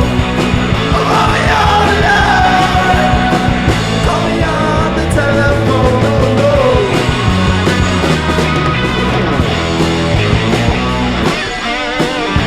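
Rock song with sung vocals over electric guitars, bass and drums.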